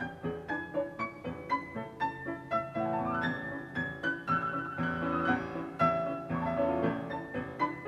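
Background music: a piano playing a flowing classical-style piece, with notes struck about three times a second.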